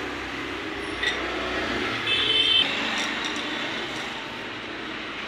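Steady background noise with a few light metal clicks as the front-fork spring and rod are fitted into the fork tube, and a short high beep about two seconds in.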